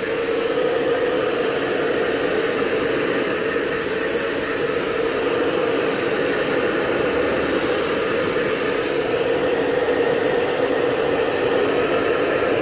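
Hair dryer running steadily, blowing on a freshly bathed dog's wet fur: a constant rushing noise with a steady hum underneath.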